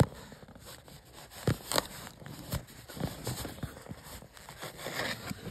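A cardboard box and tissue paper being handled: scraping and rustling, with two sharp knocks about a second and a half in.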